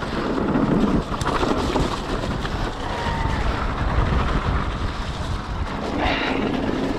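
Mountain bike descending a trail at speed: wind buffeting the microphone over the rumble of tyres on dirt, with a sharp knock from the bike about a second in.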